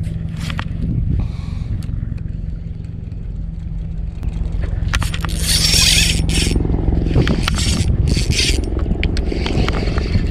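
Scraping and rustling as the angler's sleeve and gloved hand brush against the body-worn camera while he casts and reels a small spinning reel. The scraping comes several times, longest about halfway through, over a steady low rumble and hum.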